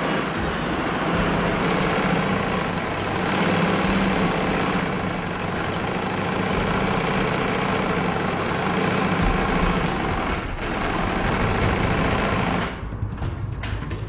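Consew industrial sewing machine running steadily, stitching through binding on a clear vinyl window panel. It stops near the end, leaving a few lighter clicks.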